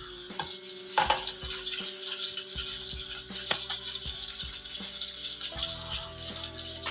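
Straw mushrooms sizzling in a steel wok over a gas burner, with a few knocks and scrapes of a metal ladle against the wok about a second in. Near the end liquid is poured in from a bottle.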